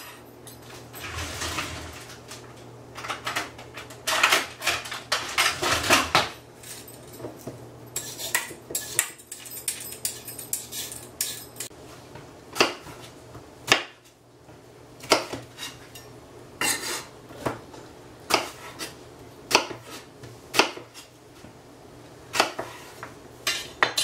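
Kitchen knife cutting carrots and a cucumber on a wooden cutting board. Stretches of denser rustling and clatter in the first several seconds give way to single sharp knocks of the blade on the board, about one every second or two.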